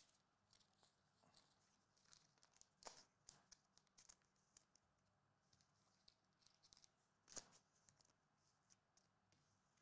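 Near silence, with a few faint, scattered small clicks and rustles of cards and packaging being handled. The clicks cluster a little after two seconds, and the loudest comes at about seven and a half seconds.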